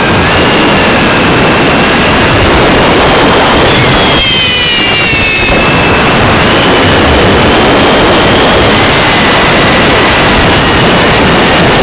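FPV quadcopter's brushless motors and propellers whining in flight, heard through the onboard camera's microphone under heavy wind noise. The whine's pitch shifts with throttle, rising about four seconds in and then falling back.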